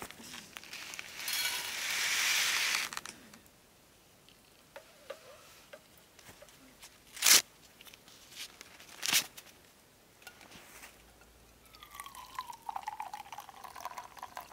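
Dry oatmeal poured from a paper packet into a stainless steel bowl, rattling for about two seconds. A paper tea-bag packet is torn open with two sharp rips a couple of seconds apart. Near the end, water is poured from a camp kettle into an enamel mug, gurgling.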